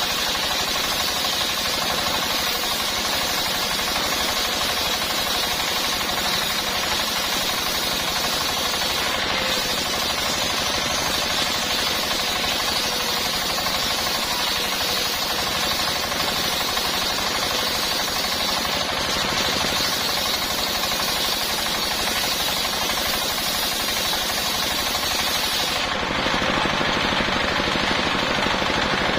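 Circular saw with a sharp blade ripping a long coconut-palm (glugu) trunk into beams: a steady, dense cutting noise with a fast chatter. The highest part of the sound drops away about 26 seconds in.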